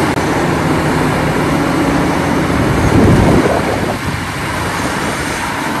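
Cat 6015B hydraulic mining excavator's diesel engine running under load as it digs and swings a full bucket to a dump truck, with the rumble of rock and machinery surging louder about three seconds in.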